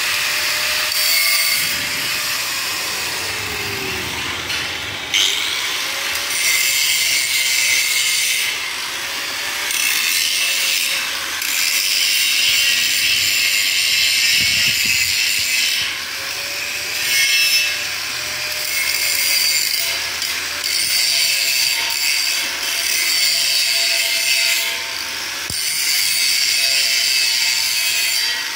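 Handheld corded angle grinder grinding a steel frame: a loud, hissing rasp of the disc on the metal that swells and eases repeatedly, with the motor's faint whine underneath.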